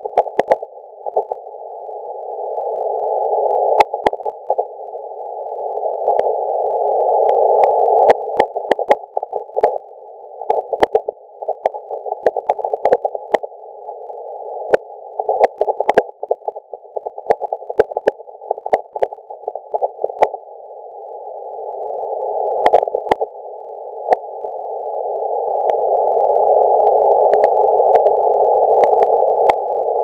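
Laptop keyboard typing, sharp clicks coming in quick runs, over a band of hiss centred near 650 Hz. The hiss is the laptop microphone's ultrasound band around 21.5 kHz shifted down into hearing with automatic gain control. It swells slowly and drops back after bursts of keystrokes, and no Morse tone is present yet.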